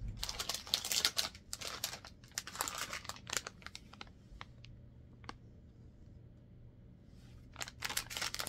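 Plastic packaging crinkling and rustling as a clear plastic bag is handled and lifted out of a shipping box: a dense run of crackles, a quieter lull with a few scattered ticks, then more crinkling near the end.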